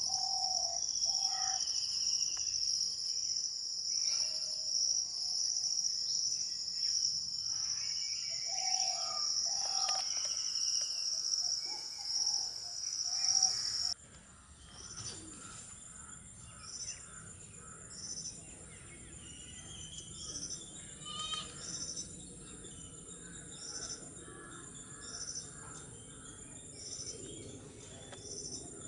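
Outdoor natural ambience: a steady high-pitched insect drone with scattered short bird calls. About halfway through it cuts to a quieter scene with a short high chirp repeating about once a second and other faint bird notes.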